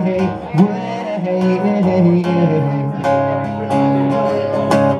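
Acoustic guitar played live, strummed and picked chords ringing on between sung lines.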